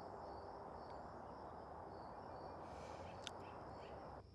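Outdoor ambience: a steady background hiss with faint, repeating high chirps and one short sharper chirp about three seconds in. The background drops away abruptly near the end.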